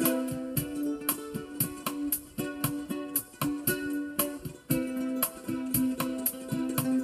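Layered guitar loops played back from a Boss RC-300 loop station through a small Logitech Bluetooth speaker: plucked notes over a repeating pattern of sharp percussive hits.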